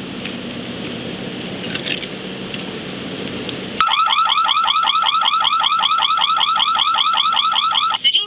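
Steady background hiss, then about four seconds in a crane suspended-load warning alarm sounds: a loud electronic siren of fast rising chirps, about five a second. It cuts off shortly before the end.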